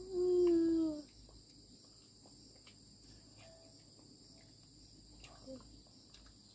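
Steady chirring of insects, a constant high-pitched drone, with a short falling call from a voice in the first second and a few faint ticks and rustles.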